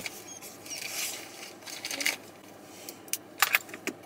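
Rustling and light clicks of small objects being handled, with a quick cluster of sharp clicks about three and a half seconds in, the loudest part.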